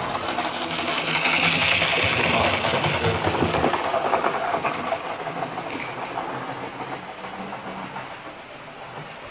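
Model train running on the layout, its motor and wheels on the rails growing louder over the first second or so, then fading away as it moves off.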